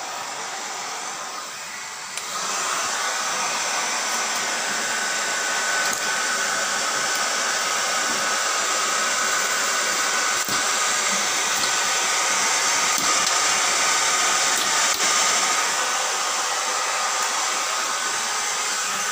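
Handheld hair dryer running continuously, a steady rush of air with a faint motor whine, getting louder about two seconds in.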